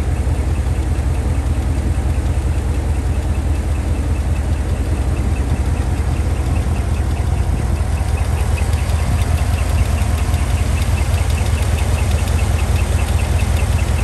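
2015 GMC L86 6.2 L V8 idling with a rapid, regular high-pitched squeak over its steady rumble; the squeak stands out more clearly from about eight seconds in. It is the sound of a bad lifter: a chewed-up lifter and cam lobe on the passenger side.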